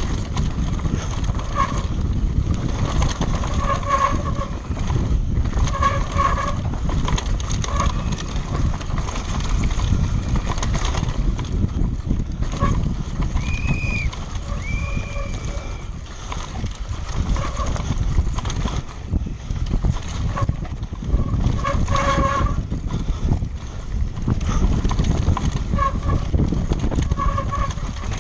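Wind rush and rattling of a downhill bike ridden fast over rough ground, with short squeaks now and then.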